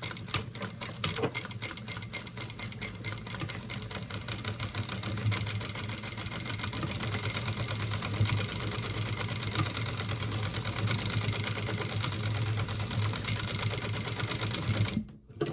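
Sewing machine running steadily, its needle stitching rapidly through seatbelt webbing, then stopping near the end.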